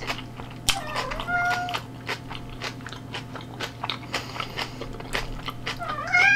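Close-miked chewing and crunching of kimchi, with many wet mouth clicks. Two short high-pitched calls sound over it, about a second in and near the end.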